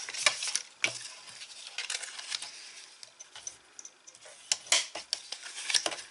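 White cardstock being handled and its fold lines creased with a bone folder: the paper rustles and slides over a cutting mat, with a few sharp taps and scrapes, the loudest a little under a second in and around five seconds in.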